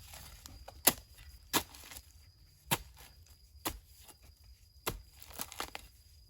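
A hand digging tool chopping into the ground: about seven sharp, separate strikes at an uneven pace of roughly one a second.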